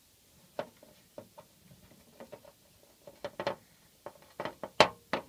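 Irregular small clicks and taps of fingers handling a small plastic sling vial and pulling at its cotton-wool plug, the sharpest click near the end.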